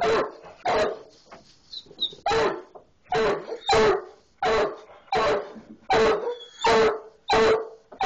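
Hound barking repeatedly at a skunk hidden in a barn wall, about one bark every 0.7 seconds, with a short pause about a second in.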